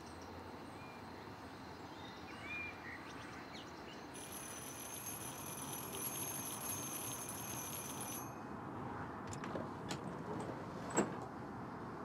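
Steady outdoor background noise with a few short clicks, then one sharp click about eleven seconds in as an upstairs casement window is pushed open.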